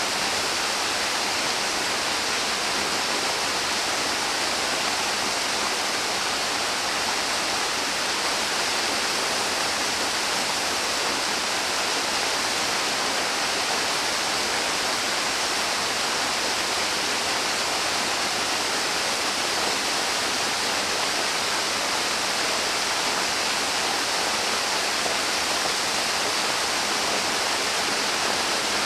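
River or stream water rushing, a steady even hiss of flowing water that holds constant without change.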